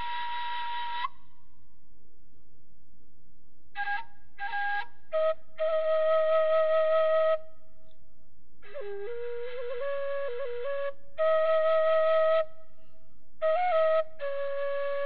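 Background music: a solo flute playing a slow melody of long held notes with small ornaments, in phrases separated by pauses of a second or two.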